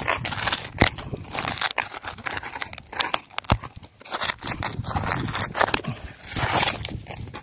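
Hand digging and scraping through coarse sand and broken coral rubble: a run of irregular gritty scrapes and crunches.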